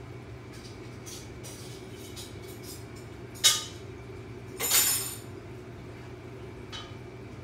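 Steady low hum of reef aquarium pumps, with a sharp clink about three and a half seconds in and a short hissing rustle about a second later, and a few faint ticks.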